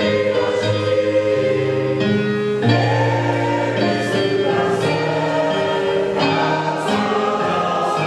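A mixed choir of men and women singing together in parts, holding long chords that change every second or two.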